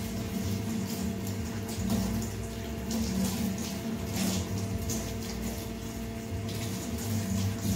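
Water splashing and sloshing as hands rinse and wash in a basin, in uneven swells.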